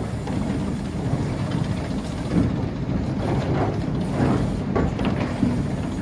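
Log-handling machinery running with a steady low rumble, with irregular knocks and clatters as logs move along the conveyors.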